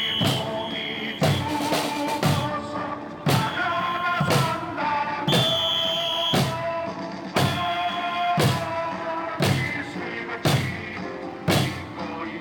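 Music with a heavy drum stroke about once a second under held melody notes.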